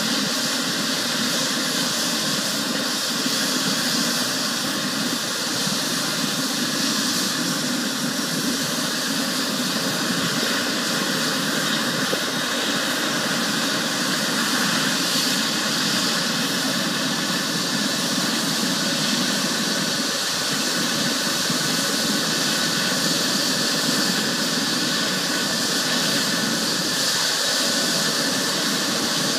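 Helicopter's turbine engine running steadily on the pad: an even rush with a faint whine over it and no change in level.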